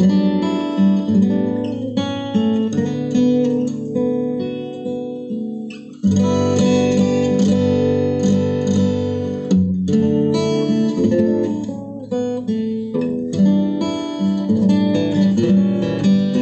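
Solo steel-string acoustic guitar played fingerstyle, an instrumental piece of plucked melody over chords. The notes die down about five seconds in, then the playing comes back in with a full chord about a second later.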